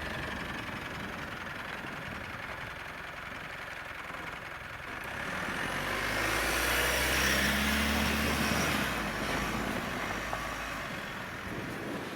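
Mitsubishi Pajero Sport driving in four-wheel drive along a rutted track, with steady tyre and road noise. The engine grows louder from about five seconds in as it pulls harder, then eases off about four seconds later.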